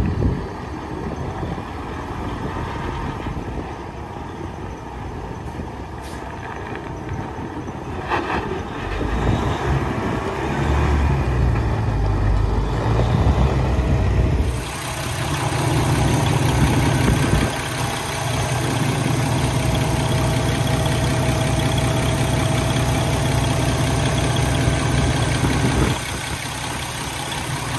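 2017 Kenworth T680 truck tractor's diesel engine running: its note rises and grows louder as the truck pulls away, then settles into a steady low idle.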